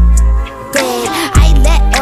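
Hip hop song: a vocal line over deep, sustained bass notes. The bass drops out about half a second in and returns after about a second.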